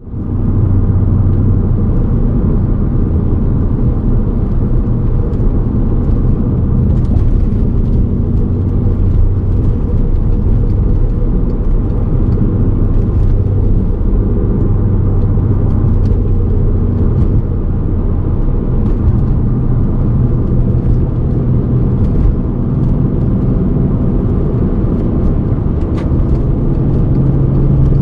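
Steady low rumble inside the cabin of a moving Volkswagen Golf R32 (Mk5), with its VR6 engine running underneath: the 'gorogoro' rumbling of a worn wheel hub bearing.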